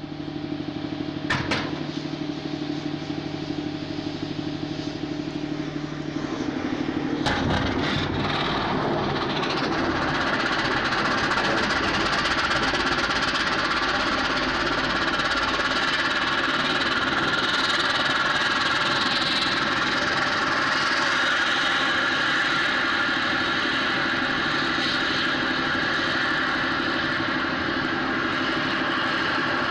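A steady hum, then about seven seconds in a sharp blast, followed by a loud, steady rushing roar: a crashed S-300 surface-to-air missile exploding and burning on the ground after a failed launch.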